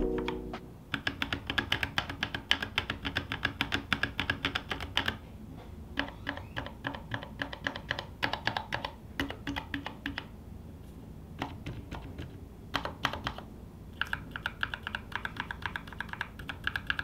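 Typing on a custom 60% mechanical keyboard with NovelKeys x Kailh Cream linear switches, an aluminium plate, PCB foam and a bamboo case. Quick runs of keystrokes, with short pauses near the middle.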